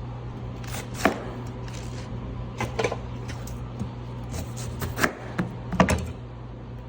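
Scattered kitchen knocks and clicks, about half a dozen sharp hits, from ingredients and utensils being handled while preparing vegetables, over a steady low hum.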